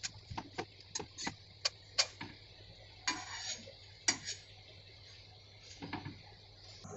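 Steel spatula clicking against a tawa as a lachha paratha is lifted, flipped and pressed: a quick run of sharp taps at first, then a short rustling scrape about three seconds in and a few more single knocks.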